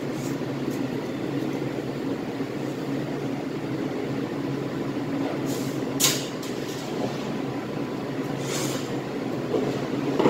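Steady low machine hum of the cutting room's air-handling unit. A sharp knock comes about six seconds in, and a brief rustle near eight and a half seconds.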